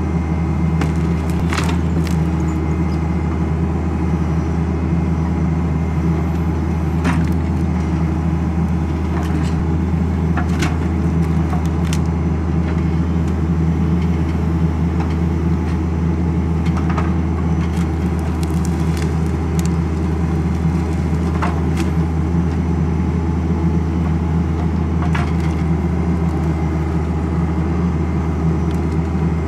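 Valtra 8050 forestry tractor's SISU 620DS 6.6-litre diesel running steadily as it powers the loading crane. Sharp knocks and cracks of logs and branches being gripped and handled sound here and there, about a dozen times.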